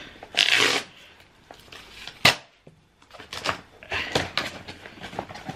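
Cardboard box being opened by hand: a short rasp of card sliding or tearing, one sharp snap a couple of seconds in, then a run of small scrapes and taps as the flap is worked open.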